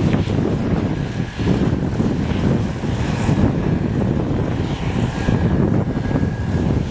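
Tractor diesel engine running steadily, a loud low drone.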